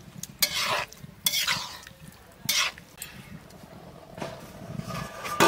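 Stirring and scraping in a cooking pot: several separate strokes a second or so apart, the loudest near the end.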